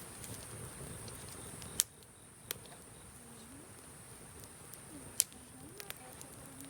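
Campfire of cedar scrap wood burning, with two sharp pops about two and five seconds in and a few fainter ticks, over a steady high insect trill.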